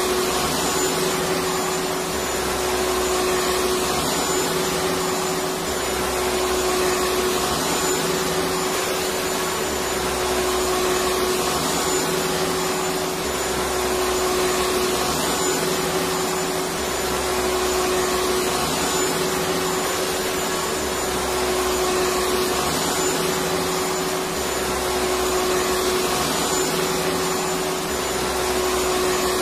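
Electric vacuum cleaner running steadily: a constant rush of air over a steady motor hum, with a low throb that swells and fades every three to four seconds.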